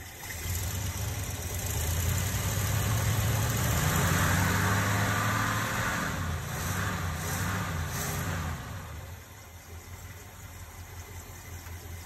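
1969 Ford F250's V8 engine revved at the carburettor: the speed climbs about half a second in, rises and falls for several seconds, then drops back to idle about nine seconds in.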